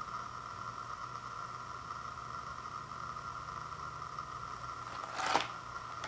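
Steady background hum and hiss, with a short rustle of a cardboard snack-bar box being handled and turned over about five seconds in.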